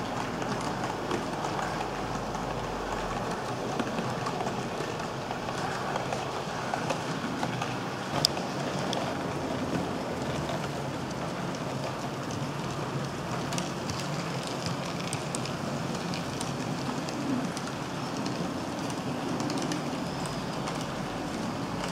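Model trains running on the track: a steady rattling rumble of metal wheels and motor, with scattered light clicks and one sharp click about eight seconds in.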